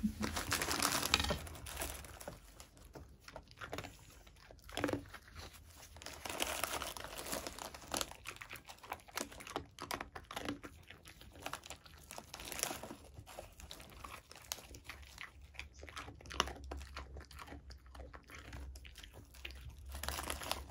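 Plastic snack bag crinkling in short spells every few seconds as it is handled, with a dog crunching and chewing small hard homemade rice-flour dog cookies taken from a hand.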